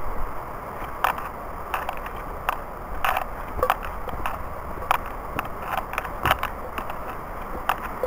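Footsteps crunching irregularly on dry leaf litter and twigs on a forest trail, over the steady rushing of a swollen brook.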